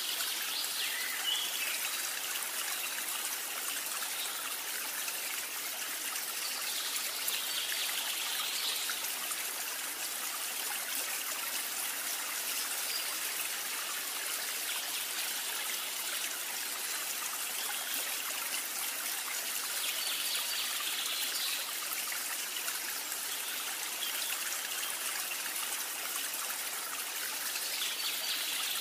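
A steady, even rushing hiss like flowing water.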